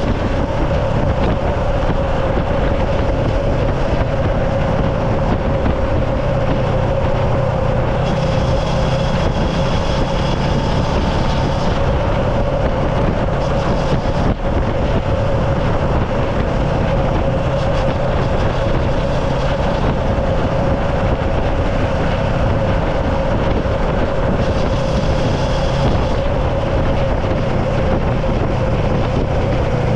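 A vehicle running steadily, with a constant mid-pitched whine over a low hum and a dense rushing noise.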